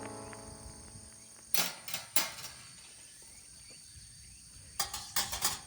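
Music fading out, then a few sharp clinks and knocks: three about one and a half to two seconds in and a quick run near the end, as the metal parts of a solo grill fire pit are handled.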